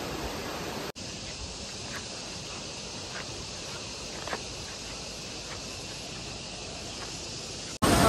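Steady outdoor background noise with a few faint, short high chirps scattered through it, broken by a brief dropout about a second in.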